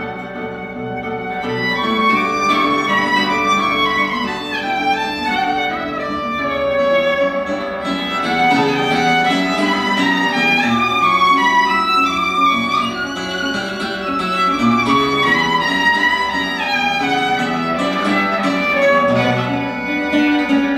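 Violin and acoustic guitar playing together: the violin plays a melody over the guitar's plucked accompaniment.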